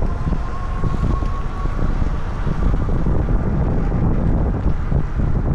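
Heavy wind buffeting the microphone of a camera riding on a moving electric bike: a steady, loud low rumble. A faint thin whine fades out in the first two seconds.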